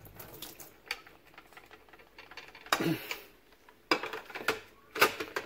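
Plastic drip tray and grille of a Saeco Xsmall espresso machine being handled: scattered clicks and knocks of hard plastic, with a louder clatter about three seconds in and more clicks near the end as the grille is fitted back on.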